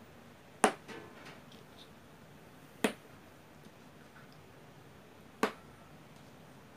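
Three sharp clicks, a couple of seconds apart, as plastic lipstick tubes are set down one at a time on a hard tabletop. The first is the loudest.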